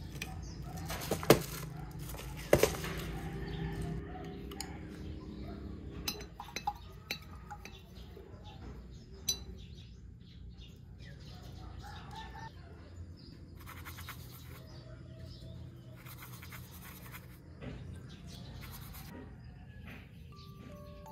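Paintbrushes being handled in and against glass jars: sharp clinks about a second in and again near three seconds, then lighter taps and rustles. A music-box tune begins near the end.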